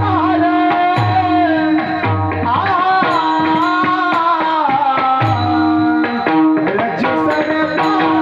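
Indian devotional-style song: a singer's long, wavering melodic line over steady tabla strokes and a held drone note.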